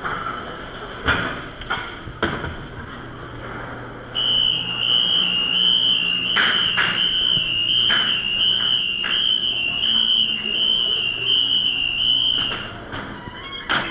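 Haunted-house sound effect: a loud, high electronic tone warbling about twice a second starts about four seconds in and holds for some eight seconds, with scattered thumps and knocks before and during it.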